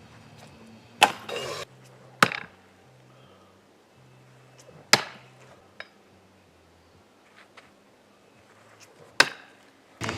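Thrown axes striking a wooden target: four sharp thwacks, unevenly spaced, the first followed by a brief rattle.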